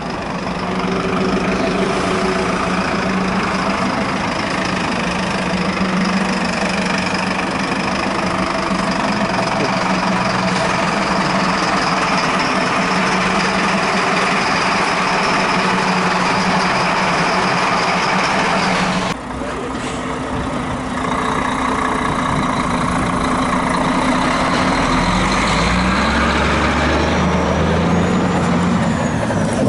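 Truck engine running close by, a steady drone. About two-thirds of the way through the sound changes abruptly, and a deeper engine note comes in near the end with a short rising whistle.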